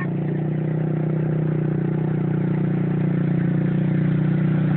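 Quad bike (ATV) engines running at a steady low speed, the hum holding one pitch and slowly growing louder as the quads approach.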